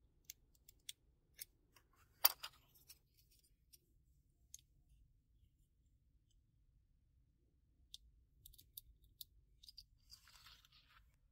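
Small sharp clicks of a blade and a brass photo-etched part working in an RP Toolz photo-etch bending tool as the metal is bent. The loudest click comes about two seconds in, a second cluster follows around eight to nine seconds, and there is a short rustle near the end.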